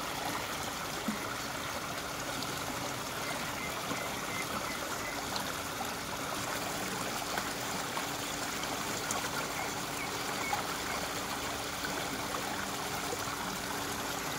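Muddy, rain-swollen floodwater flowing steadily past the bank vegetation: an even rush and trickle of moving water.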